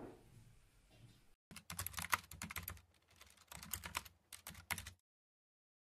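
Rapid, irregular clicking, like typing on a computer keyboard, in two runs of about a second and a half each, which stops abruptly about five seconds in.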